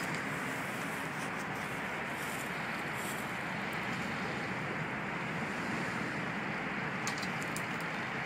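Jeep Wrangler engine running low and steady as the Jeep crawls down a muddy trail, an even rumble with no revving.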